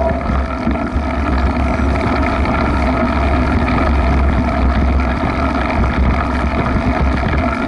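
Wind buffeting the microphone of an action camera on a moving mountain bike, a steady low rumble, mixed with the noise of the tyres rolling through grass.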